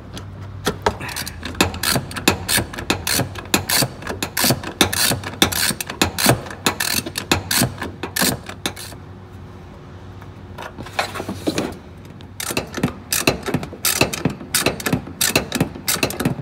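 Ratchet wrench with a 10 mm socket on an extension clicking rapidly as it unscrews a bolt holding the front bumper, in two runs with a pause of about two seconds in the middle.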